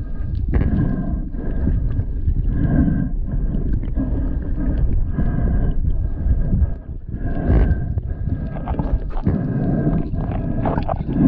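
Muffled underwater water noise picked up with the microphone below the surface: a low churning rumble from swimmers moving through the water, swelling and easing in irregular surges, with a faint steady high tone above it.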